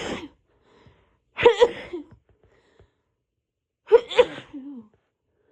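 A woman sneezing in a rapid fit: the end of one sneeze, then two more about two and a half seconds apart, each a quick two-part burst, the last trailing off in a falling pitch. The sneezes are induced to relieve a cold-itchy nose, and her voice is still hoarse from the cold, so they sound odd.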